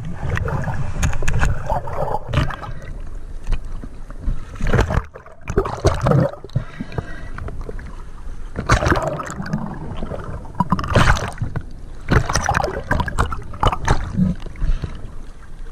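Water sloshing and gurgling around the camera, with irregular knocks and a constant low rumble.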